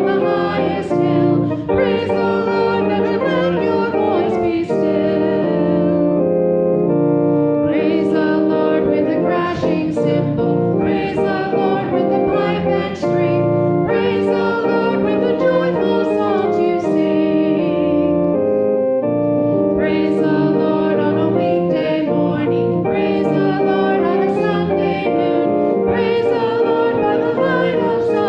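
A congregation singing a hymn in unison with keyboard accompaniment, in steady phrases.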